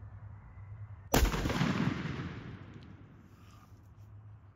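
A single loud shot from a Winchester SXP 20-gauge pump shotgun about a second in, followed by a rolling echo that dies away over about two seconds.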